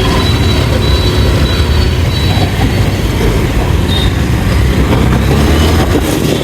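Bajaj Pulsar 180F's single-cylinder engine running as the motorcycle is ridden, a steady low rumble mixed with wind noise on the microphone.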